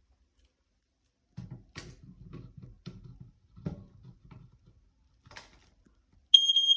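Light knocks and clicks of handling, then near the end a smoke alarm sets off its loud, steady, high-pitched beep under test.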